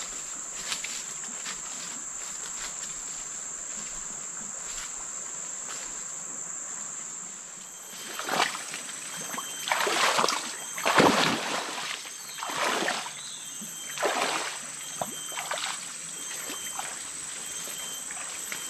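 Footsteps wading through a shallow muddy stream: about six splashing, sloshing strides, starting about eight seconds in, over a steady high-pitched insect drone.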